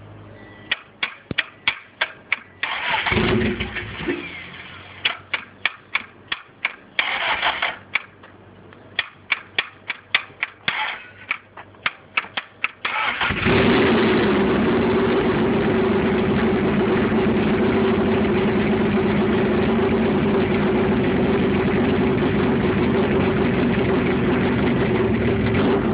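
A failing starter on a built LS V8 clicking over and over, about four clicks a second, with a few short bursts of cranking in between. About halfway through the engine catches and settles into a steady idle.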